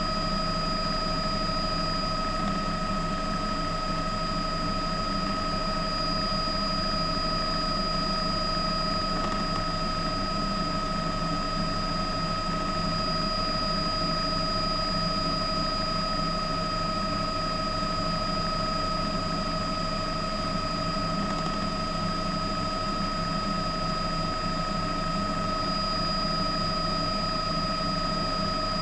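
News helicopter running steadily in flight, a constant drone with a steady high whine over it.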